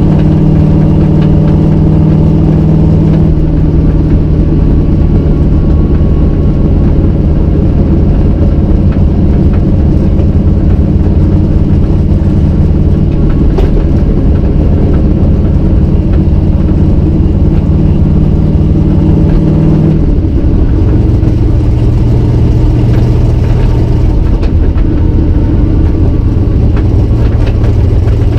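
Cammed 351 Windsor V8 with forward-facing headers, heard loud from inside the Fox-body Mustang's cabin while cruising at a steady pace. The engine note steps a little lower about three seconds in and drops again about twenty seconds in.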